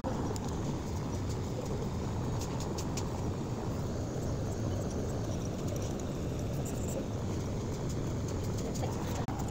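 Steady low rumbling background noise, with a few faint ticks about two and a half and three seconds in.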